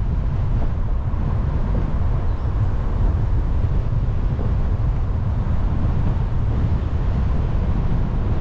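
Car driving along a road: a steady low rumble of tyre, road and wind noise picked up by a car-mounted action camera.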